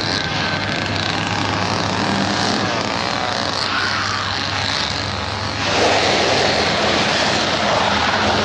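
Two-stroke chainsaw engine running steadily, growing louder about six seconds in.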